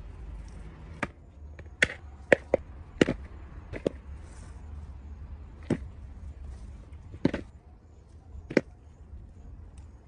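Freshly dug potatoes knocking as they are dropped into a plastic bowl: some nine sharp knocks at irregular intervals, over a low steady rumble.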